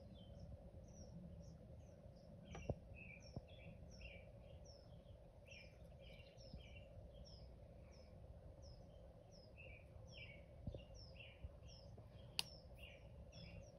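Faint bird chirping: short, high chirps repeated about one or two a second, over a low steady background hum, with an occasional small click.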